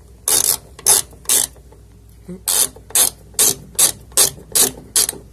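Hand socket ratchet clicking as it is swung back and forth, driving in the door check's mounting screw. The clicks come in short strokes about two or three a second, with a brief pause about a second and a half in.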